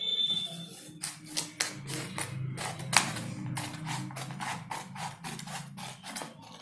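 Scissors cutting chart paper along a fold: a quick run of sharp snips, about three or four a second, starting about a second in. A thin high whine sounds during the first second.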